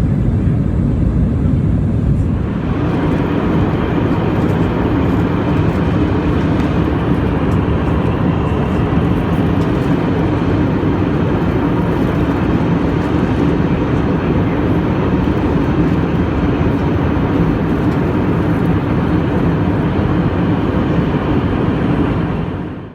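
Airbus A320-family jetliner's engines and rushing air heard from inside the cabin: a loud, steady rumble. About two seconds in, a higher hiss strengthens and then holds. It fades out right at the end.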